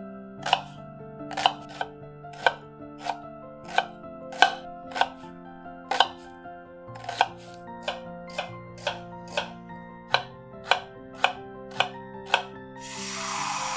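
Chef's knife chopping a red onion on a wooden chopping board: crisp knocks, about two a second, over soft background music. A steady hiss comes in near the end.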